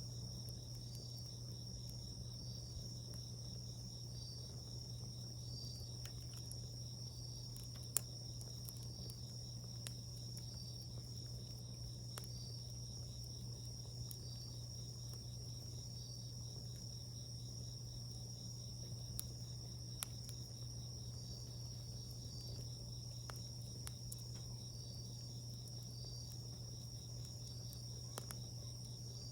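Crickets trilling steadily on a high tone, with a second insect chirping regularly about once a second. A wood campfire gives a few sharp pops, the loudest about eight seconds in.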